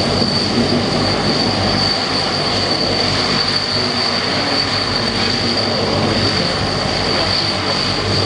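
Transall C-160's two Rolls-Royce Tyne turboprop engines running as it taxis: a steady high whine over a broad, even rumble.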